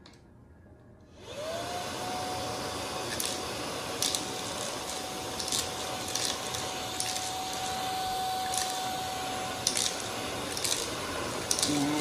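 A Xiaomi Mi Vacuum Cleaner Light cordless handheld vacuum is switched on about a second in. Its motor whine rises quickly, then runs steadily with a rush of suction air. Sharp clicks come now and then as pieces of cereal are sucked up through the brush nozzle.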